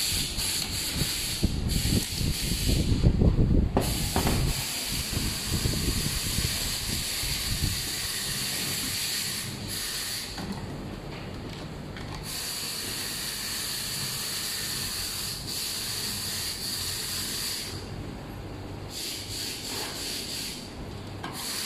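Steady background hiss, with a few seconds of louder low rustling and knocking about two seconds in as a battery pack and its wires are pressed into a plastic solar street-light housing.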